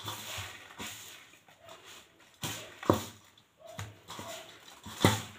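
Hands mixing and squishing hot jaggery-coated sesame seeds in a large steel pan, a loose rustling. Two sharp knocks, one about three seconds in and one near the end, from the steel spoon striking the pan.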